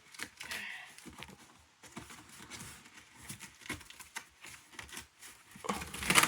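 Cardboard packaging being handled and opened by hand: light scrapes and taps, with a louder rustle near the end.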